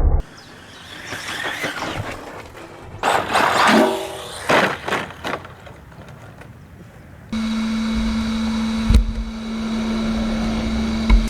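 Radio-controlled model trucks running off-road in several short clips that cut from one to the next: motor and wheel noise that rises and falls in the first part, then a steady hum from about seven seconds in, with a single sharp knock near nine seconds.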